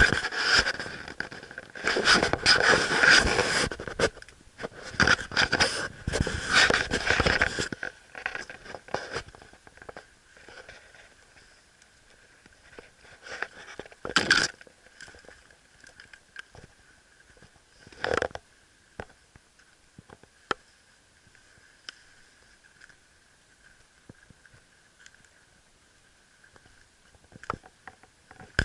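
Footsteps and rustling as someone walks through forest undergrowth of ferns, moss and fallen branches, with handling noise on the handheld camera: loud and busy for the first several seconds, then mostly quiet with a few scattered snaps and rustles.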